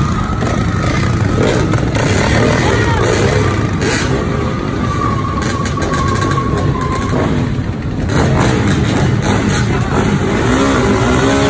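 A group of dirt bikes and ATVs running close together, their engines idling and revving in a loud, continuous din.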